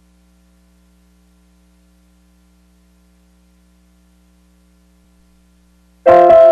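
Faint steady electrical hum, then piano music starts suddenly near the end.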